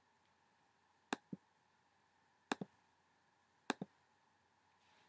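Three pairs of short, sharp computer mouse clicks, each pair quick, the pairs about a second and a quarter apart, over a quiet room.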